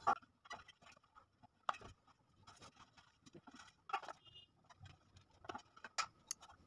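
Faint, scattered light taps and scuffs of a silicone pastry brush spreading oil over the inside of an aluminium cake tin.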